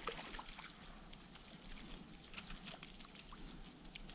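Faint running water of a small stream, with scattered small clicks and ticks.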